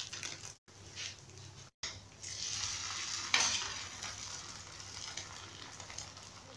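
Egg and shawarma filling sizzling on a hot flat cast-iron griddle: a soft, steady frying hiss. The sound drops out completely twice, briefly, in the first two seconds.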